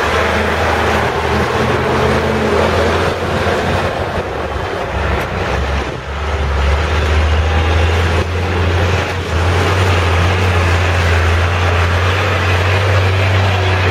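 Heavy diesel truck engines running close by: a steady low drone under a broad hiss, the drone growing stronger about halfway through.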